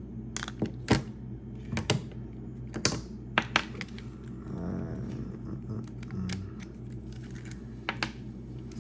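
Irregular sharp metallic clicks and taps as a hand rivet gun is handled and worked on for disassembly, over a steady low hum.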